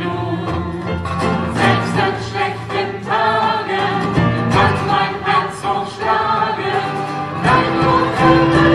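Live acoustic band playing a song with several voices singing together, over acoustic guitars, violin, keyboard and a steady percussion beat. About three-quarters of the way through a long held note comes in and the music grows a little louder.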